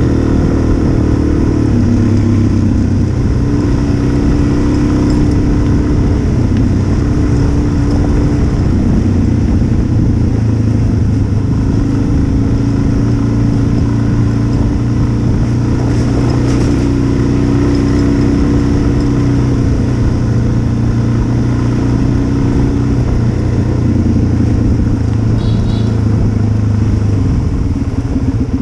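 Single-cylinder dual-sport motorcycle engine running steadily under way, heard from on the bike, its pitch stepping up and down every few seconds as the throttle and gears change.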